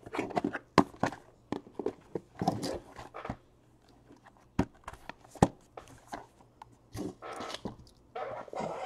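Shrink-wrapped cardboard trading-card boxes being lifted out of a case and set down on a table: scattered knocks and taps, with brief rubs of cardboard and plastic wrap.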